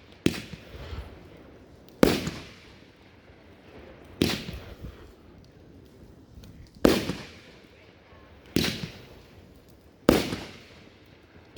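Consumer aerial fireworks bursting: about six sharp bangs at uneven gaps of roughly two seconds, each dying away in a short echo.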